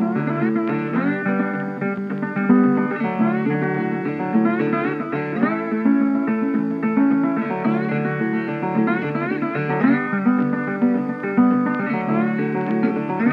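Background music led by plucked guitar, with a steady run of notes.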